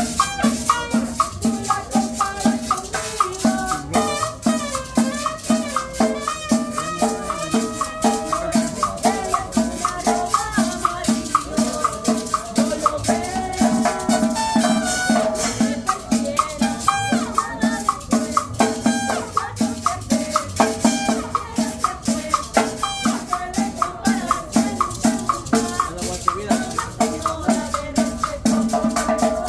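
A live band playing cumbia: a melody over a steady, even drum beat and shaken rattle percussion.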